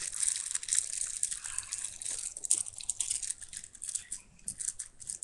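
Plastic packaging crinkling and rustling in the hands, with irregular small crackles, as a squishy toy is handled and unwrapped.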